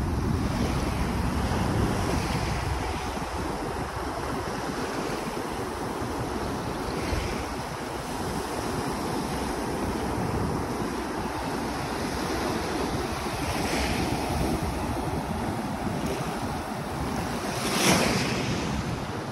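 Ocean surf washing steadily at the shoreline, with wind buffeting the microphone. A short louder surge of noise comes near the end.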